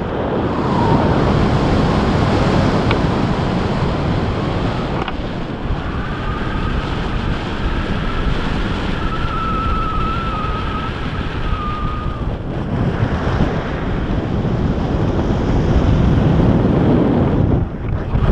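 Wind rushing over the camera microphone during a tandem paraglider flight, a loud, steady rush. A faint wavering whistle runs for several seconds in the middle.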